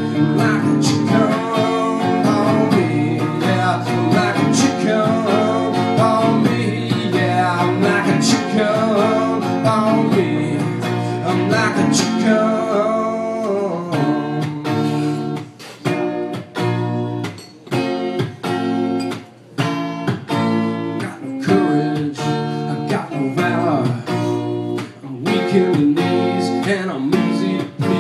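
Solo hollow-body electric guitar in an instrumental break of a song. For about the first half a wavering, bending melody sounds over held chords. It then changes to choppy strummed chords with short stops between them.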